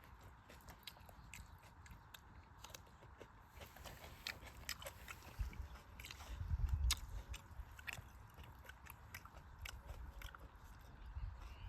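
Faint chewing and biting, with many scattered short crunching clicks and a low thump about two-thirds of the way through.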